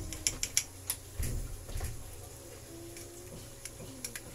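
Thick coconut-milk chicken curry simmering in a pan, its bubbles popping with sharp ticks, several close together in the first second and fewer after. A dull low thump comes a little after one second in.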